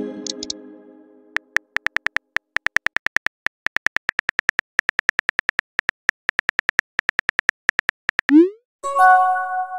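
Phone-keyboard typing sound effect: a rapid run of short, even key clicks as a text message is typed out. It opens as a message-received chime rings down over the first second. Near the end a short rising whoosh marks the message being sent, and another ringing chime follows.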